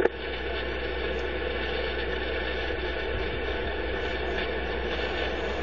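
Steady engine and running hum of a vehicle, even throughout, with a short click right at the start.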